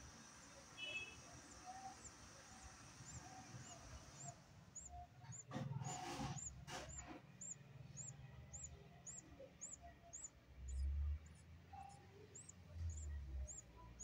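Caged budgerigars chirping faintly, with a short high chirp repeating about twice a second through the second half. There are low rumbles about eleven seconds in, the loudest sound here.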